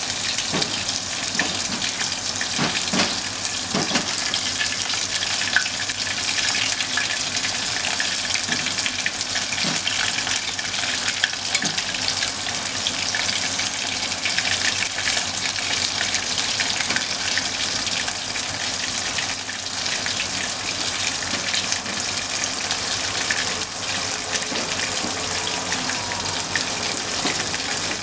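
Hot oil sizzling and crackling steadily as bone-in beef short rib pieces deep-fry, with a few soft knocks in the first seconds.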